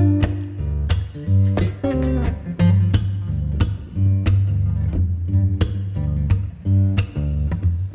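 Background music: plucked and strummed guitar over a steady, evenly pulsing bass beat.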